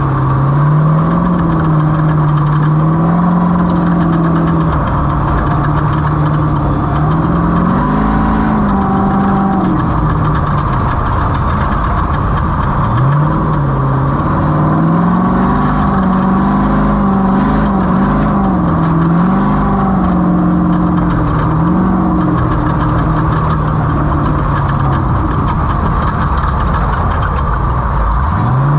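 Race vehicle's engine running hard, its pitch climbing and falling with the throttle over a dense, steady noise. It drops sharply about thirteen seconds in and again near the end, then picks back up.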